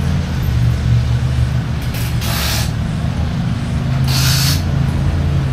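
Steady low hum of running machinery, with two short hisses about two seconds apart.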